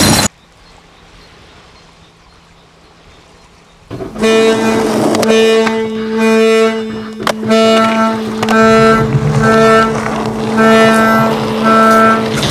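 A loud sound cuts off abruptly, leaving about four seconds of faint hiss. Then instrumental music starts: held low notes under short higher notes that repeat about once a second.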